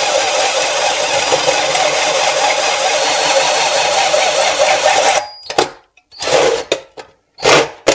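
Cordless drill running a bi-metal hole saw through a thin stainless steel sink deck: a steady grinding of the cutter in the steel, which stops about five seconds in and gives way to a few short bursts.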